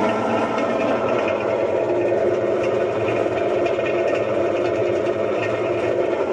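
Maytag top-load washer running in agitate with the agitator removed, making a loud, steady mechanical noise. The agitator shaft barely moves, the sign of a failing transmission.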